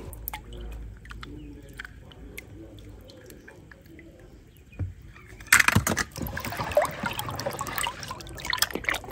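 A few faint small clicks, then about five and a half seconds in, water starts running and splashing.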